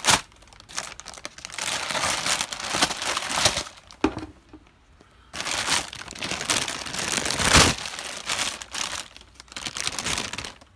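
Thin plastic bag liner crinkling and rustling as it is pulled open by hand, in bursts with a short lull about four seconds in.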